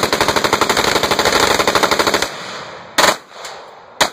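KRISS Vector submachine gun firing fully automatic: one long, very rapid burst lasting a bit over two seconds, then two short bursts about a second apart near the end.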